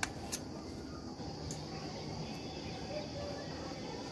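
Two light clicks of a steel knife against a steel plate near the start while boiled gram-flour balls are sliced, then faint steady background hiss.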